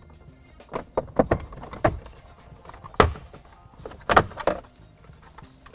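Plastic side trim plate of a Ford F-150 center console being pushed out and pulled free by hand: a run of plastic clicks, snaps and scrapes, with the loudest snap about three seconds in and another cluster about a second later.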